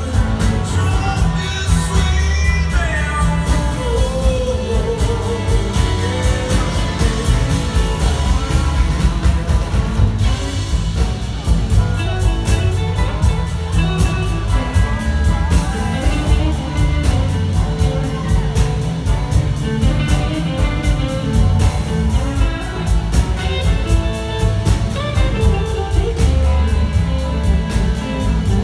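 Live electric blues-rock band playing a blues: several electric guitars over bass and drums, with singing.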